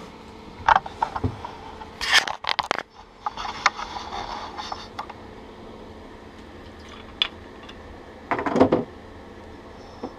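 Knocks, clicks and scraping of things being handled and set down on a tabletop, in a few short bursts, over a steady low hum.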